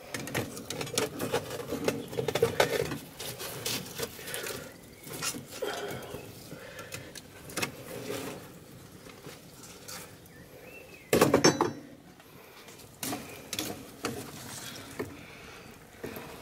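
Forge fire crackling and popping around a blade heating in the coals, with irregular clicks and a short, louder rattle about eleven seconds in.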